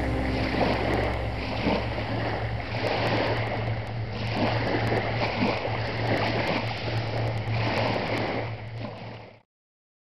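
Small waves of a calm sea lapping at the shore, washing in and out in soft swells every second or two, with a low wind rumble. The sound fades out near the end.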